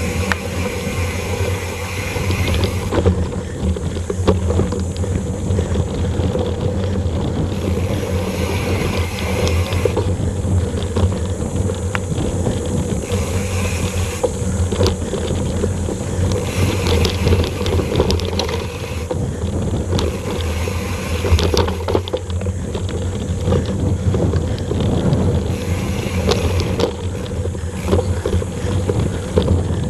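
Wind rushing over an action camera's microphone while riding a mountain bike along a dirt trail, with a steady low rumble of tyres on the ground and frequent small clicks and rattles from the bike over bumps.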